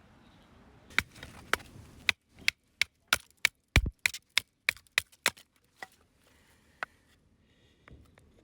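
Hatchet chopping firewood: a quick run of sharp strikes into wood, about two or three a second, slowing to a few single blows near the end.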